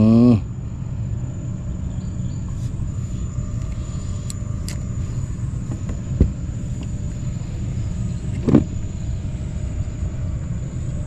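A steady low engine rumble. A short vocal sound comes about eight and a half seconds in.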